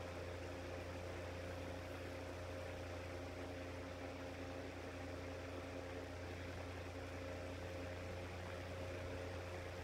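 Shinic 9-inch electric fan's motor humming steadily with no change in pitch while it struggles through a slow cold start; it has no start capacitor, so it is slow to get up to speed when cold.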